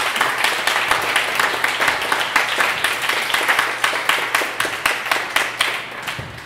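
Audience applauding, with one person clapping close by; the applause dies away near the end.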